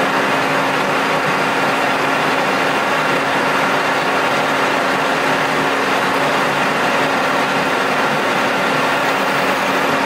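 Colchester metal lathe running steadily at about 770 rpm with a constant gear whine, while a centre drill in the tailstock cuts into the end of a steel bar.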